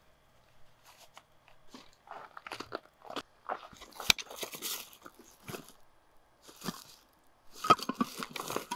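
Hands rummaging in a fabric motorcycle bag: irregular rustling and crinkling of cloth and the gear packed inside, with a couple of sharp clicks.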